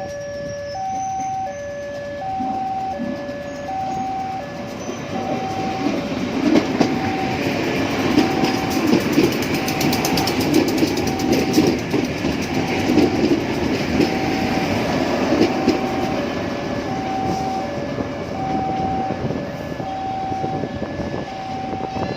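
Level crossing warning bell sounding a repeating two-tone chime throughout while a train passes, its wheels rumbling and clattering over the rails. The train noise swells a few seconds in, is loudest mid-way and then fades back under the chime.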